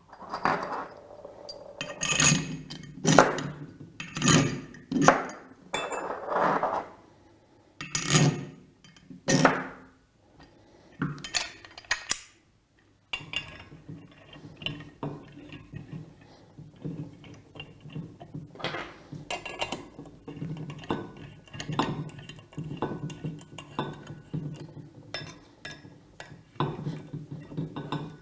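Metal pump parts clinking and knocking as the cover plate is refitted onto the air-operated diaphragm pump's air system. The louder separate knocks come in the first half. After a brief pause about halfway through come quieter, frequent small clinks and taps.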